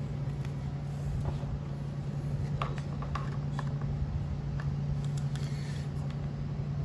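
Steady low hum, with a few faint clicks and taps of a screwdriver on a two-stroke string trimmer's plastic engine housing as it is worked at the muffler.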